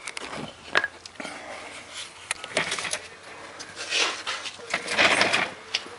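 Handling noise as a camera is picked up and carried: irregular knocks, clicks and rustling, with the loudest rustles about two-thirds of the way through.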